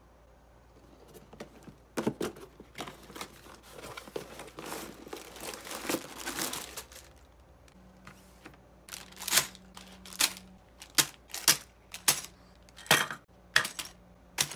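Plastic bags of LEGO parts and the cardboard box being handled, crinkling and rustling from about two seconds in. From about nine seconds in come a series of sharp knocks as the bagged parts are set down one after another on a wooden table.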